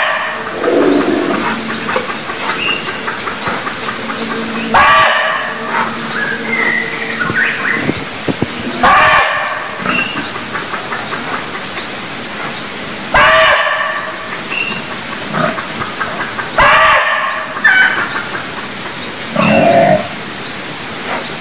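Barking deer (red muntjac) calling: four short, loud barks roughly four seconds apart, with a fainter call near the end. Beneath them, a high chirp repeats a little faster than once a second over a steady forest background.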